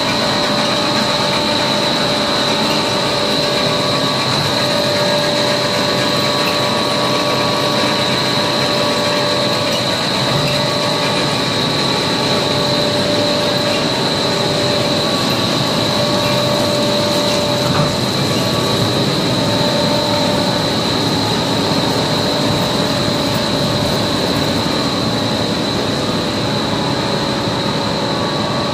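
Double-layer stretch film machine running steadily: a constant mechanical noise with a high, steady whine over it.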